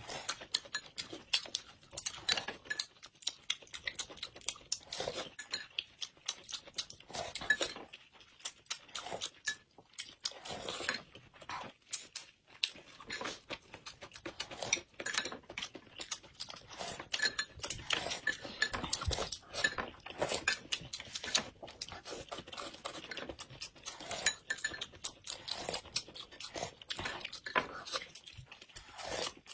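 Two people eating steamed buns: close-up chewing and mouth clicks in a dense, irregular run, with chopsticks and a spoon clinking against bowls and plates.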